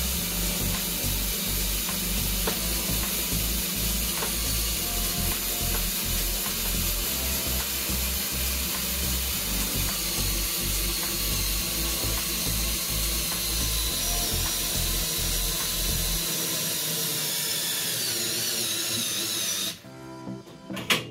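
Cordless drill running steadily, turning the scissor lift table's drive to lower the table. It stops near the end.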